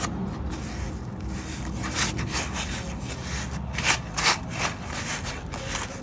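Metal spoon scraping and stirring a thick seasoning paste with grains of sugar and salt in a bowl: a run of short rasping strokes, loudest about four seconds in.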